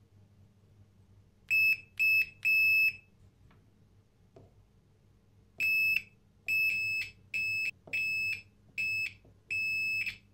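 Digital multimeter's continuity buzzer giving short, steady, high beeps as the probes touch the windings of a door bell's electromagnet coils: three in quick succession, then six more after a pause. The beep signals continuity across the windings, a short circuit between a few turns of the coil.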